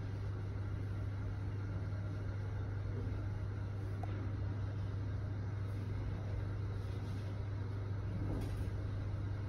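Steady low hum inside a Mitsubishi Nexway high-speed elevator car with the doors shut, the ride noise of the car travelling in the shaft.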